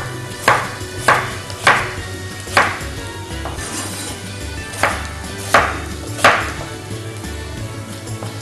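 Kitchen knife cutting a raw potato into cubes on a wooden chopping board: about seven sharp knocks of the blade on the board, uneven in spacing, with a pause of about two seconds midway.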